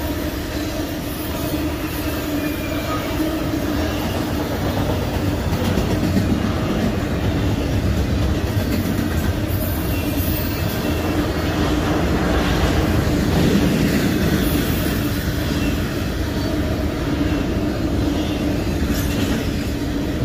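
Union Pacific double-stack intermodal train cars rolling by, wheels clattering on the rails, with a steady squeal from the wheels.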